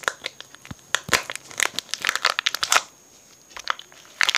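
Packaging of a set of small ball magnets being opened by hand: rapid crinkling and tearing rustles that stop about three seconds in and start again just before the end.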